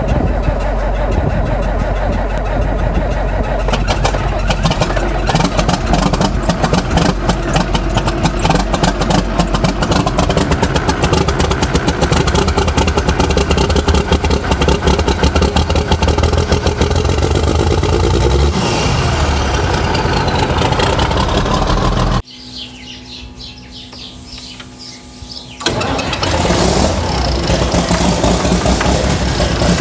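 Farm tractor diesel engines cold-starting and running, with a rising whine about two-thirds of the way in. The sound then cuts to a much quieter engine for a few seconds before another tractor engine starts loud and runs on.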